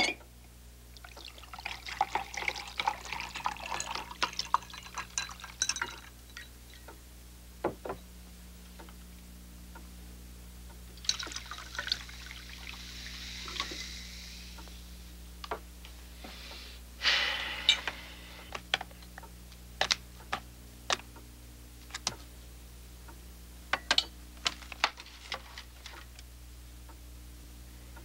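Whisky poured from a glass bottle into a tall glass over ice cubes, with ice clinking during the pour; later, cola poured from a can into the glass, fizzing. Scattered sharp clicks and taps of glass and utensils run between the pours.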